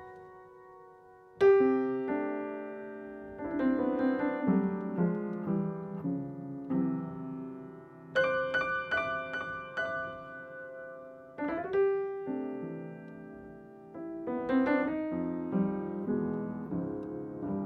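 Piano playing slow jazz chords and short melodic runs in phrases, each phrase struck and then left to ring and fade before the next. The first, loudest chord comes about a second and a half in.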